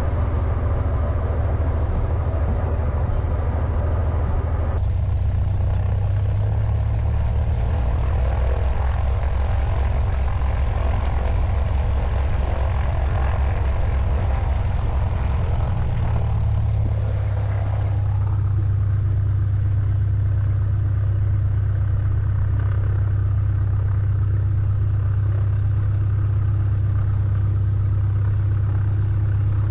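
Single-engine propeller plane's piston engine running at low ground power, heard inside the cabin as a steady low drone. Its note shifts slightly about five seconds in and again after about seventeen seconds.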